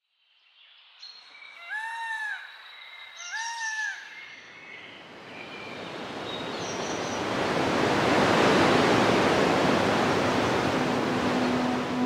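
Outdoor ambience with two bird calls about two and three and a half seconds in. Then a rush of wind-like noise swells up and stays loud. Near the end a low, steady musical tone comes in.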